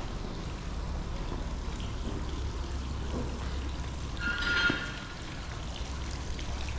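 Town street ambience: a steady low rumble of background noise, with one brief high-pitched squeal a little after halfway.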